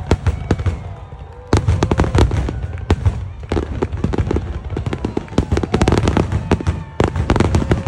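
Fireworks finale: a rapid barrage of bangs and crackling shell bursts, easing briefly about a second in before a dense volley resumes.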